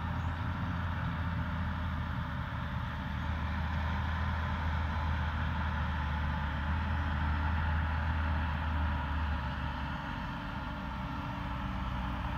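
Straight-piped Fendt 927 tractor's diesel engine and a Claas Jaguar 950 forage harvester working together on silage grass, heard as a steady low engine drone with a broad machinery hiss above it. The deepest part of the drone eases off about ten seconds in.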